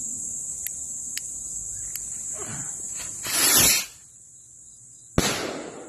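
A small silver-tail kwitis (Filipino bottle rocket) launching: a sputtering hiss builds into a brief loud whoosh as it takes off, and about a second and a half later a single sharp bang that echoes. Crickets chirp steadily throughout.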